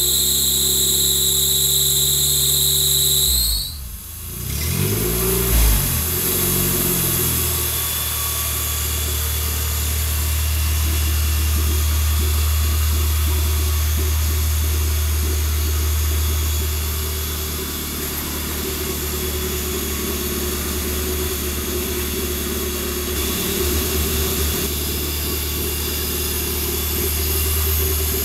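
Mazda B3 1.3-litre four-cylinder engine running on an engine stand on its first start, changing speed briefly a few seconds in and then settling into a steady idle. A steady high-pitched tone sounds over it for the first three seconds or so, then cuts off.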